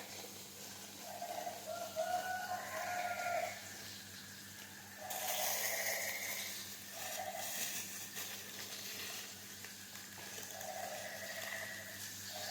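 Farm-animal calls, repeated about four times, each roughly a second long. A hiss joins about five seconds in.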